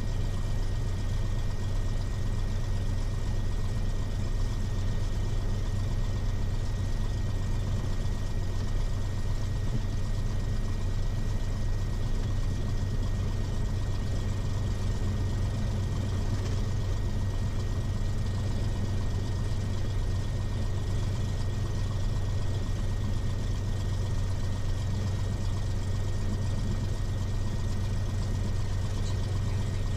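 Steady drone of a Cessna 182 Skylane's piston engine and propeller at low taxi power, heard inside the cabin.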